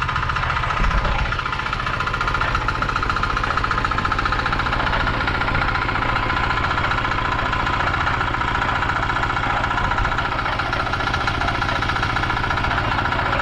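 Concrete mixer's engine running steadily, with a low rumble and a steady whine over it.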